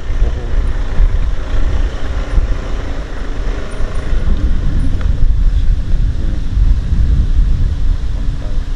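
Loud, gusty wind rumble on the microphone over a faint steady motor hum, as from a moving vehicle.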